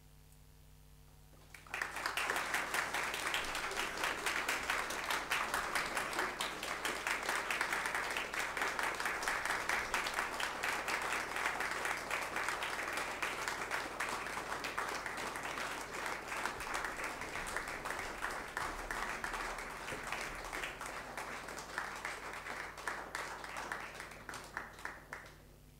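Small audience applauding, starting suddenly about two seconds in and tapering off near the end.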